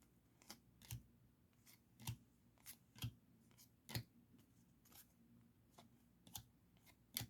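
Baseball trading cards being flipped through one at a time from a stack: faint, sharp card snaps, about two a second.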